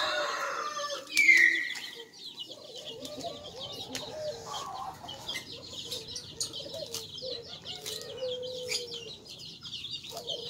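Chickens clucking and small birds chirping, with one loud, falling bird call about a second in. Close crunching and chewing of crispy fried fish and raw lettuce runs underneath.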